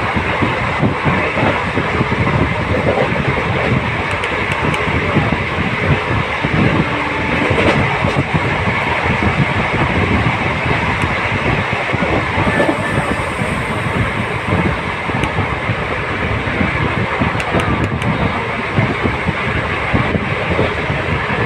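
Running noise of a moving passenger train heard from inside the coach: a steady loud rumble of wheels on rails, with irregular clacks of the wheels over rail joints.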